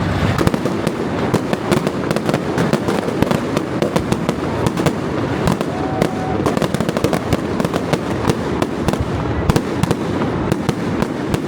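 Fireworks display: a continuous, dense run of crackling bursts and sharp bangs with no pause.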